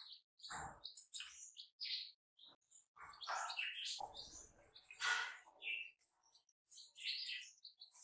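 Newborn chicks peeping in many short, high-pitched chirps, with a few duller knocks and rustles among them.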